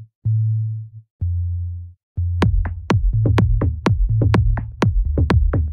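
Electronic dance-track intro: a few deep synth bass notes, each held under a second, then a drum-machine beat comes in about two seconds in and runs on as a fast steady pulse of sharp hits over the bass.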